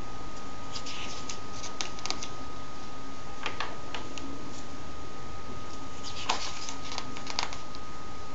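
Comic book's paper pages being handled and turned, rustling and crackling in three short spells, over a steady high hum and hiss.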